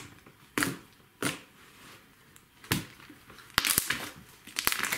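Slime pressed and squeezed by hand, giving off sharp clicks and crunches: a few single pops, then a quick cluster of them a little past halfway.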